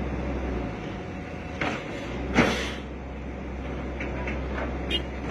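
Hitachi excavator's diesel engine running with a low drone, with a few short metallic clunks from the machines, the loudest about two and a half seconds in.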